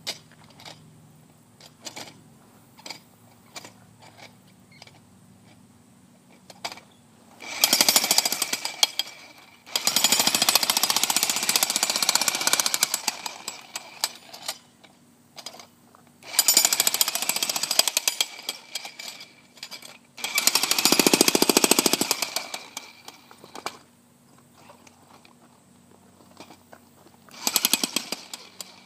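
Jackhammer hammering in five bursts of a few seconds each, with short pauses between them filled by scattered clicks and knocks.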